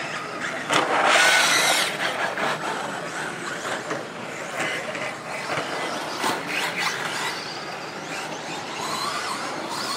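Electric RC stadium trucks racing on a dirt track: their motors whine, rising and falling with the throttle, over the rush of tyres on dirt. The loudest pass comes about a second in.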